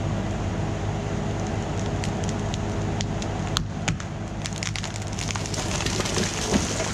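Bobcat E26 mini excavator's diesel engine running steadily while dead pine wood cracks and splinters under the bucket. The snaps start about two seconds in and come thicker and louder in the second half.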